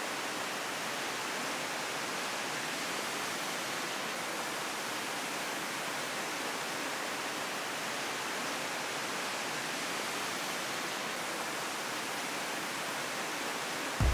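Steady rushing of Yeonsan Falls, water pouring down a rock gorge into a pool.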